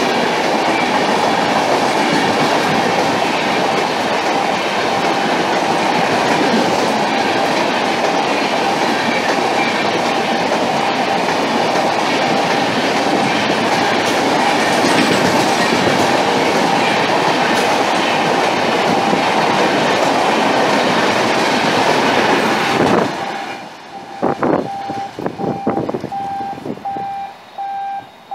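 Coaches of the Sealdah Duronto Express passing at speed: a loud, steady rush of wheels on rails. About 23 seconds in the rush cuts off, leaving a few knocks and a repeating beep.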